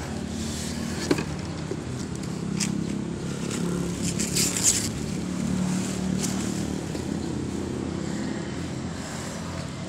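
Plastic wrapping and cardboard packaging rustling and scraping as parts are unpacked by hand, with a cluster of loud crinkles about halfway through. Underneath is a steady low mechanical hum.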